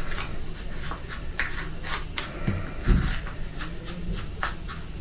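Scattered light clicks and knocks, with a duller thump about three seconds in.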